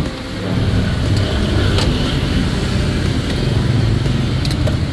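Low, steady rumble of a motor vehicle engine close by, swelling about half a second in, with a few faint clicks over it.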